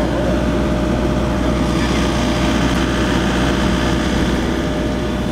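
An engine or machine running steadily, a constant low hum.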